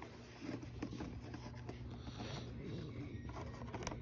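Faint rustling and scratching as toy packaging is handled and opened, over a faint steady low hum.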